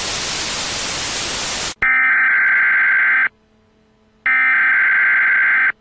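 Television static hiss for under two seconds cuts off abruptly into an emergency-broadcast style alert tone, a harsh buzzing beep sounded twice, each about a second and a half long with a pause of about a second between.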